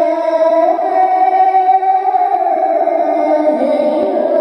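Background music: a sung melody with long held notes that slowly shift in pitch.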